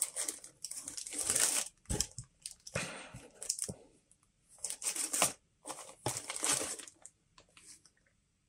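Clear plastic bags holding model kit sprues crinkling as hands press and shuffle them into the kit box, in several separate bouts of rustling that die away near the end.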